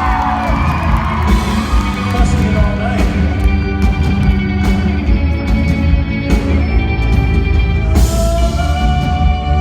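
Live rock band music, heavy in the bass, with a male voice singing held notes near the end.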